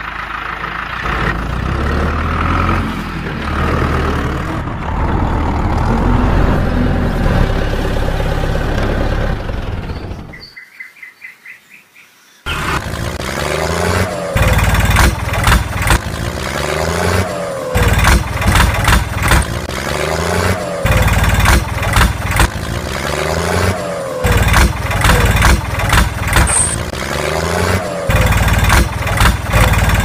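Recorded engine sound effect laid over the picture, running steadily, with a short near-quiet gap about eleven seconds in. After the gap it repeats in a loop about every three seconds.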